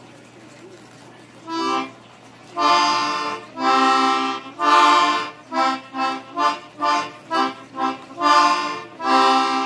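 A small toy musical ring played as a short tune she knows: a string of reedy, accordion-like notes, a few long held ones first and then quicker, shorter ones.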